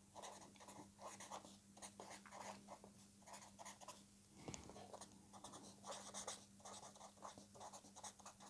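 A pen scratching on paper as words are written out by hand: a run of short, faint strokes, with a faint steady hum underneath.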